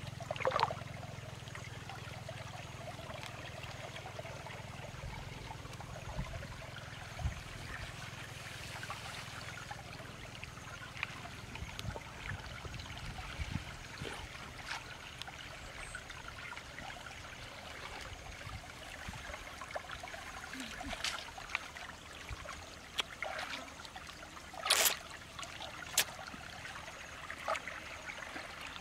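Water trickling steadily through a small field channel, with scattered small knocks and rustles from hands working in the grass and mud at its edge; a sharper knock or splash comes near the end, followed by another a second later.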